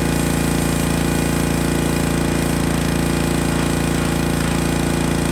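Pressure washer running steadily with its motor and pump, the wand spraying a jet of water onto the corn picker's metal snouts.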